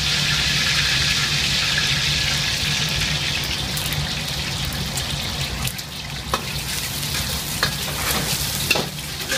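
An egg frying in hot oil in a wok: a steady sizzle that eases off a little as it goes. A metal spatula scrapes and clicks against the wok a few times near the end.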